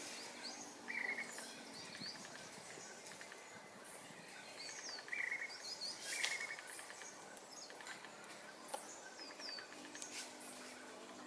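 Outdoor ambience of small birds chirping, with short high calls and a few brief trills, over a faint steady background of insects.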